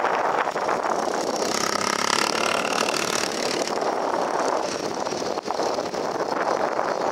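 Cessna 680 Citation Sovereign's twin Pratt & Whitney Canada PW306C turbofans running at taxi power as the jet turns on the runway: a steady rushing hiss, with faint whining tones in it a couple of seconds in.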